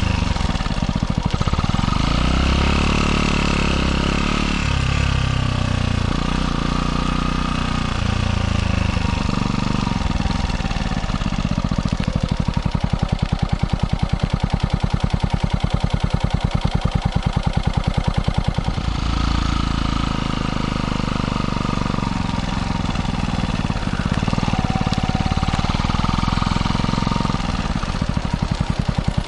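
Kawasaki Eliminator 125's single-cylinder four-stroke engine under way, heard through a microphone just behind the muffler outlet. The revs rise and fall early on, settle into slow, even exhaust pulses in the middle, then pick up again.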